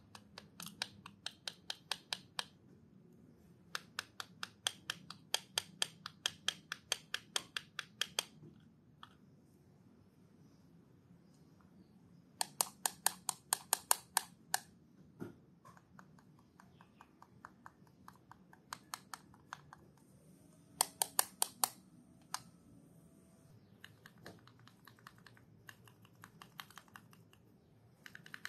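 Loose plastic spacebar keycaps rocking on a flat surface as fingers press one end and then the other, giving quick runs of light clicks, about six a second, in several bursts with pauses between. The rocking is the sign that a keycap may be warped rather than lying flat.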